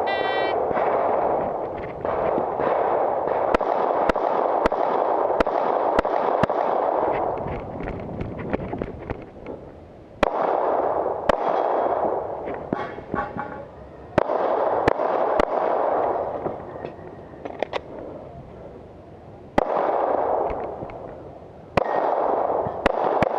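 A shot timer beeps once, then a pistol fires a string of shots in quick groups with short pauses between them, as the shooter runs the stage. A loud rushing noise comes and goes in long stretches under the shots.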